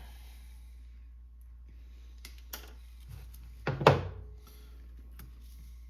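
Handling noises: a couple of light clicks, then a single louder knock with a brief ring about four seconds in, over a steady low hum.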